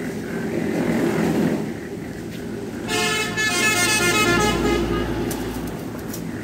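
A vehicle horn sounds one steady, unbroken tone for about three seconds, starting about three seconds in, with a low rumble under its second half, over steady low background noise.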